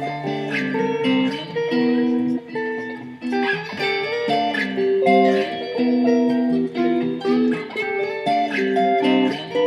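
Guitar music: plucked guitar notes, single lines and chords changing every fraction of a second.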